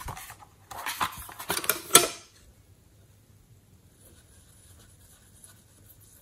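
Plastic eyeshadow palette case handled with a crackle of clicks, ending in a loud snap about two seconds in. From about four seconds, a brush scratches faintly against the pressed eyeshadow in the palette.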